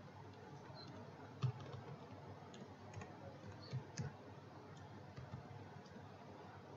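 A computer keyboard being typed on faintly: a scattered handful of short key clicks over a low hiss.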